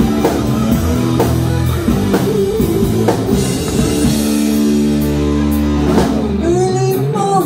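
Live rock band playing: electric guitar chords over a drum kit, with chords held for a few seconds in the middle, and a woman's singing voice coming in near the end.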